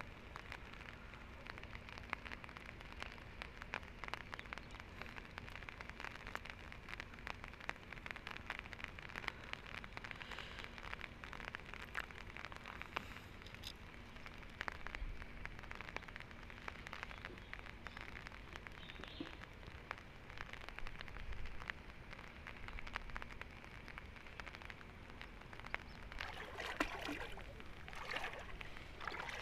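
Rain falling steadily, a dense patter of small drops, with a few louder swishes near the end.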